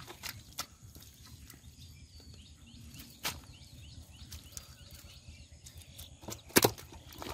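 Scattered wet slaps and knocks from catfish being grabbed and lifted out of soft mud by hand, with a loud double slap about six and a half seconds in. Faint bird chirps in the background.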